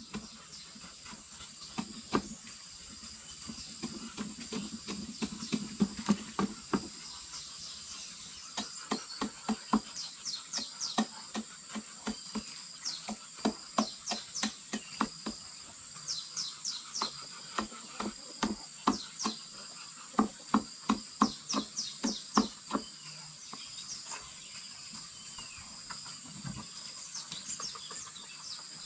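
Steady insect chirring in two high even tones, with runs of sharp knocks repeated about twice a second over it, several strokes at a time.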